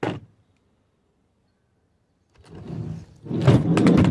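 A single knock at the very start. Then, after two seconds of quiet, a stretch of clattering and rubbing as an aluminium equipment carrying case is shut and handled, loudest near the end.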